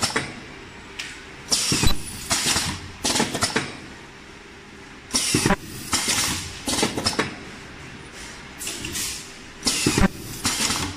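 Ultrasonic ear-loop welding machine cycling: its air-driven welding head gives short hissing bursts and clacks, in irregular clusters about every second, over a faint steady hum.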